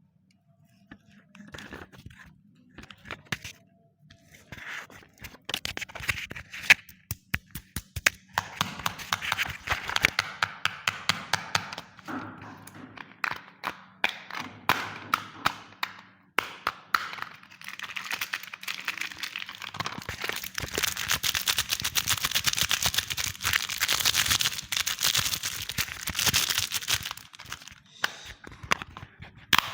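Crinkling and tearing of plastic packaging, with many sharp clicks and taps of hard plastic. The crackling grows dense in two long stretches, one from about a quarter of the way in and another from about two-thirds in.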